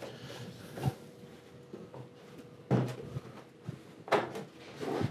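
Plastic retaining clips of a TV's back cover snapping loose as the cover is pried up by hand: a few sharp plastic pops, spaced a second or two apart.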